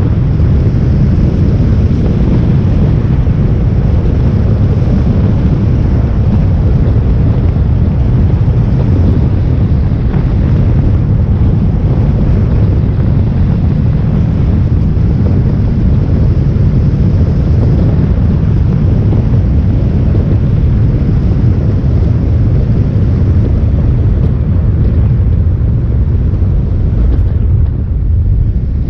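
Heavy wind rumble on the microphone mixed with engine and road noise from a motorcycle on the move, steady throughout and easing a little near the end.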